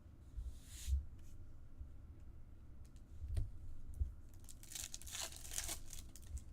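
Trading card pack wrapper being torn open: a short tear about a second in, then a longer crinkling rip near the end, with light knocks from handling.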